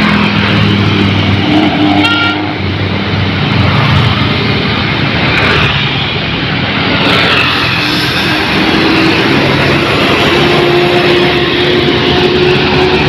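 Road traffic passing close by: loud, steady engine and tyre noise from passing vehicles.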